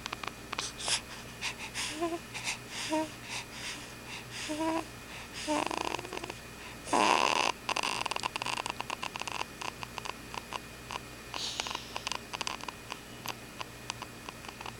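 Snoring during sleep: irregular crackly breaths with a few short squeaky whistles in the first six seconds, and one loud, harsh snore about seven seconds in.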